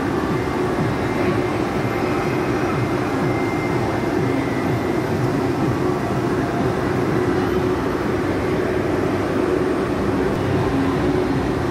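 Steady, loud din of an indoor amusement arcade: a continuous wash of machine noise with a low hum running under it.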